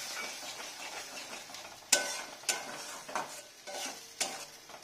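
Metal spatula stirring a spice-and-onion masala frying in a kadai, over a soft sizzle. From about two seconds in, the spatula knocks sharply against the pan five times, roughly every half second, the first knock the loudest.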